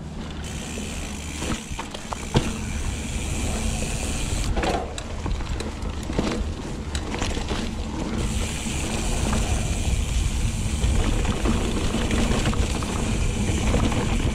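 Mountain bike ridden on dirt singletrack: tyre rumble and wind on the microphone, with knocks and rattles from the steel hardtail over roots. A high buzz, typical of a Hope Pro 4 rear hub freewheeling, drops out for a few seconds in the middle, then returns. The sound grows louder in the second half as speed builds.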